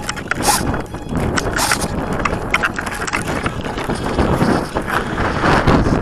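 Gusty wind buffeting the microphone of an RC airplane's onboard camera: an uneven rumble with scattered knocks and rattles.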